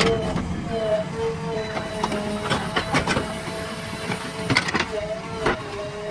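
Earth-moving machine working: a steady, slightly wavering whine over engine rumble, with clusters of sharp metallic clanks about halfway through and again near the end.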